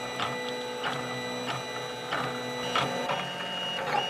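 Printrbot Simple Metal 3D printer printing: its stepper motors whine in several steady tones that shift in pitch as the head moves, with short ticks every half second or so.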